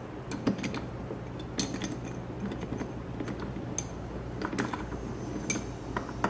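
Metal parts of a large old Columbian bench vise clinking and knocking as they are handled and turned during disassembly, in scattered light clinks over a steady low hum.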